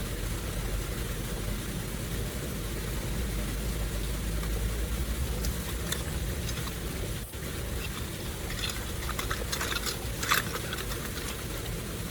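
Floodwater running steadily, with a low rumble throughout. A few short sharp sounds come near the end, the loudest just past ten seconds.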